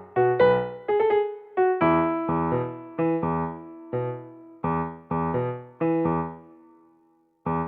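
Background music on piano or electric piano: struck chords and notes about twice a second, each dying away. The music falls briefly silent near the end, then starts again.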